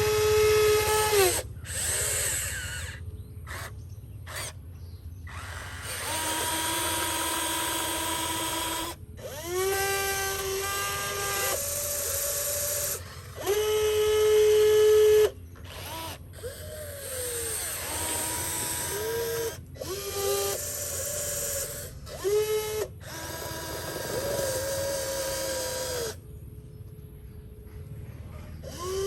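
Small electric motors whining in a string of short runs of one to three seconds, the pitch rising as each one spins up, several stopping abruptly.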